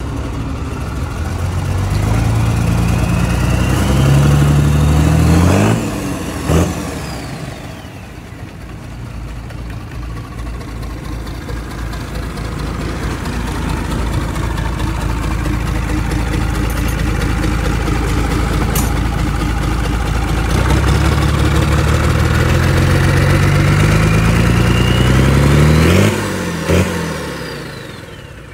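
Bare used truck diesel engine, out of its vehicle and running on the ground, revved up twice for about five seconds each time with a turbo whine rising alongside. Each time the revs drop away suddenly, a sharp crack follows about a second later, and the whine slides down as the turbo spools down.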